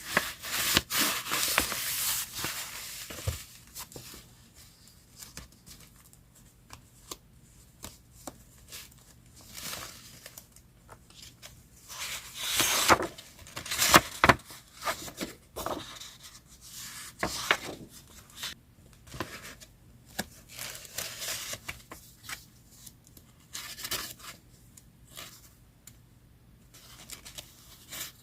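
Paper being torn and handled, with crinkling and rustling in irregular bursts, the loudest near the start and again about halfway through.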